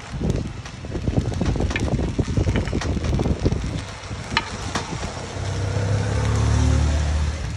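Metal spoon scraping and clicking against a hot cast-iron coconut-cake mould pan as the cakes are pried out of their hollows, with a light sizzle. About five seconds in, a steady low hum rises and becomes the loudest sound.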